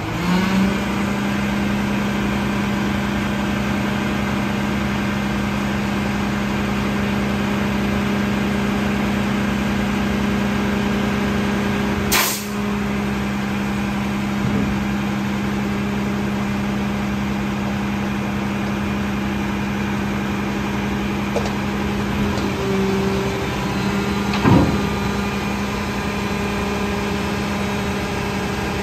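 Front-load garbage truck's diesel engine revving up and held at a steady raised speed while the truck stands still, as when it drives the hydraulics. A short burst of hiss comes about twelve seconds in and a loud clank about twenty-four seconds in, and the engine drops back near the end.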